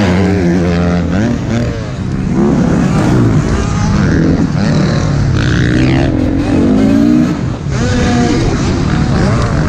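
Dirt bike engine heard from on board, revving up and down through the turns, its pitch rising and falling repeatedly with brief throttle-offs about two seconds in and again near the end, while other race bikes run close by.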